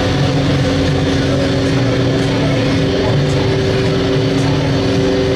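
Water taxi's engine running steadily while underway: a loud, even drone with a few steady held tones.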